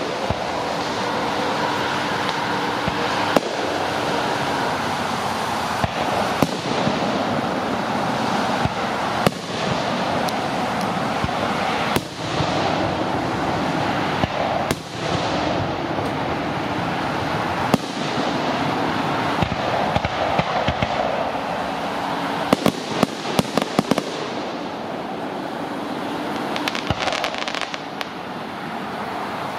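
Aerial fireworks shells bursting: sharp bangs every few seconds, then a quick run of cracks about 23 seconds in and again near the end, over a steady hiss.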